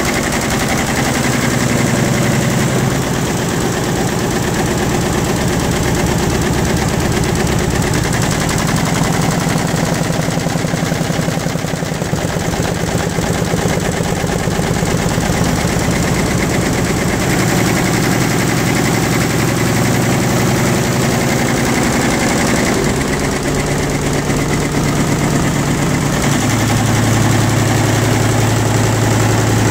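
An engine running steadily with a fast, even firing pulse, its pitch settling at a few different speeds, dropping lower about three seconds in and rising near the end.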